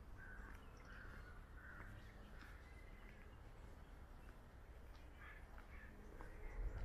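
Faint bird calls over a low city rumble: three short, harsh calls in the first two seconds, then two more about five seconds in. A low bump comes near the end.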